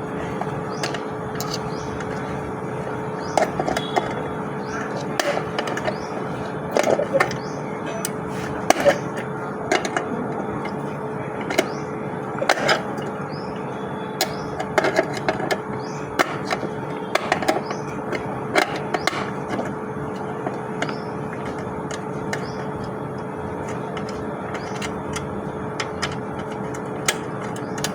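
Irregular clicks and knocks of a ceiling fan and its packaging being handled during unboxing, over a steady hum. The knocks are busiest in the first two-thirds and thin out towards the end.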